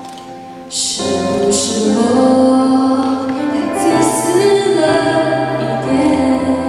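A woman singing a Mandarin pop ballad into a handheld microphone over backing music; her voice comes in about a second in.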